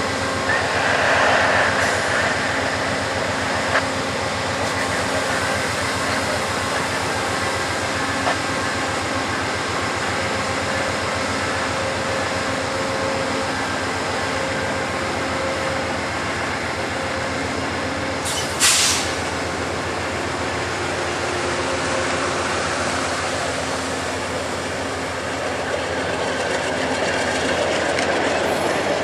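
VIA Rail passenger train running alongside, a steady rumble with a constant hum. A single sharp clank comes a little past halfway.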